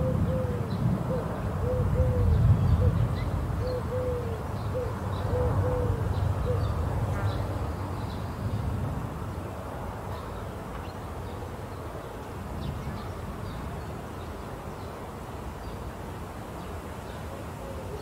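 Distant thunder rumbling and slowly dying away over the first half. A bird gives a run of short, low hooting notes during the first six seconds or so, with faint small-bird chirps above.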